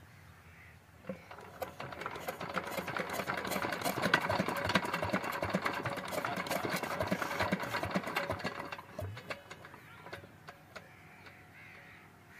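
Old Petter diesel engine starting up: a rapid mechanical clatter builds about a second in and runs strongly, then falls back to a quieter, slower ticking after about nine seconds.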